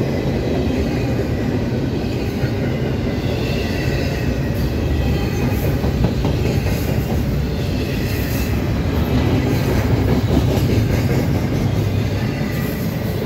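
Double-stack intermodal freight train's container well cars rolling past: a steady, loud rumble of steel wheels on rail, with a faint wheel squeal above it.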